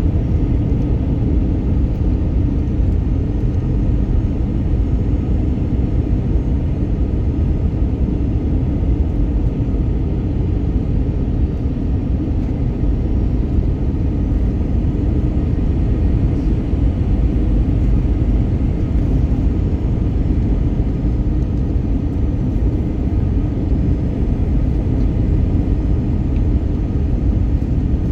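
Steady low rumble of airflow and engine noise inside the cabin of an Airbus A320neo airliner in flight, with no distinct changes.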